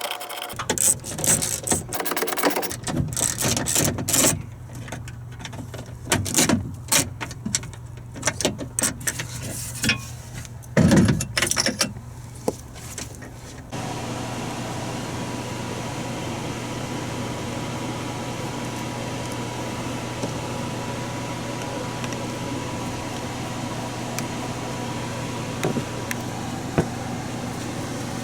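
Metal clinking and rattling from hand tools and loose parts as bolts are worked on inside a van door, with a few sharp knocks. After about fourteen seconds it gives way abruptly to a steady hum with a faint high tone.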